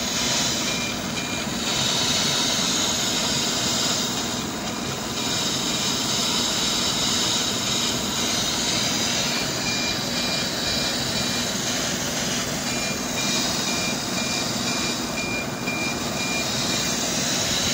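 Software-defined radio receiver's audio tuned to a NOAA 18 weather satellite pass near 137.9 MHz: a steady hiss of FM static, with the satellite's high APT image tone faintly coming and going through it, pulsing about twice a second.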